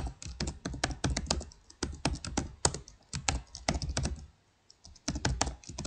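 Typing on a computer keyboard: a quick run of key clicks, broken by a short pause about four and a half seconds in before the typing resumes.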